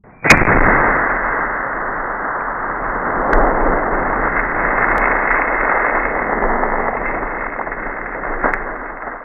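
Shotgun blast and bursting water jug: a sudden loud bang about a third of a second in, then a long, steady rushing noise of spraying water with a few faint ticks, fading near the end.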